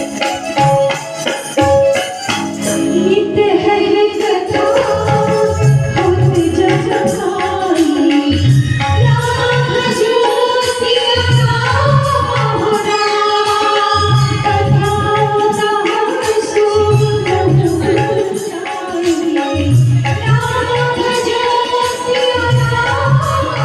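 Indian devotional bhajan music: a keyboard melody with gliding sustained notes over a steady hand-drum beat and tambourine jingles.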